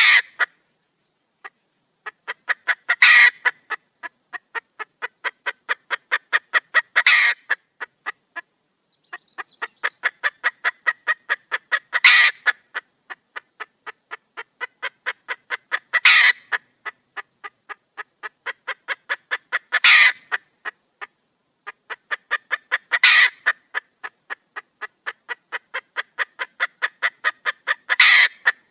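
Red junglefowl hen calling for a male: runs of short clucks at about four a second, growing louder, each ending in a louder drawn-out call. The pattern repeats about every four seconds, seven times.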